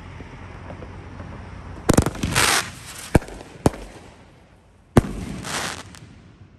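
Consumer fireworks cake firing aerial shots. There are two sharp bangs about two seconds in, two more between three and four seconds, and another about five seconds in. The first and last are each followed by a short crackling hiss as the glitter breaks.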